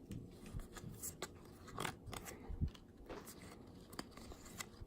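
Baseball cards being handled and flicked through by hand: a scatter of faint clicks and light scrapes of card stock.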